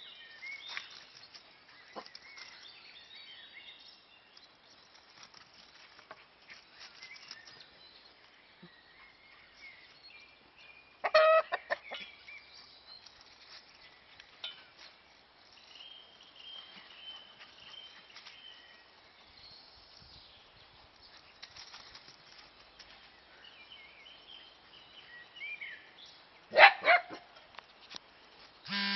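Backyard chickens clucking, with two loud short calls: one about eleven seconds in and a louder one near the end. Faint high chirping runs throughout.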